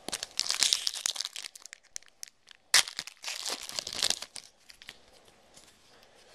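Trading card pack wrapper being torn open and crinkled by hand: crackling bursts, a sharp snap about three seconds in, then quiet handling for the last couple of seconds.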